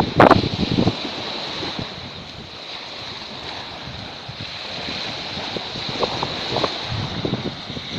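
Small waves washing onto a sandy beach, with wind buffeting the microphone in the first second and again around six to seven seconds in.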